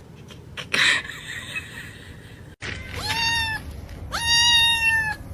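A cat meowing twice, loud and high, the second meow longer than the first. Just before, there is a short noisy burst.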